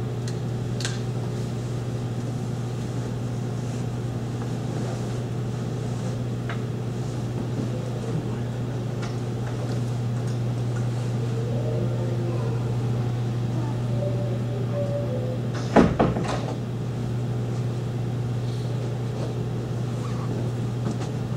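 Steady low room hum, with faint squeaks of a marker drawing on a whiteboard and one sharp knock about sixteen seconds in.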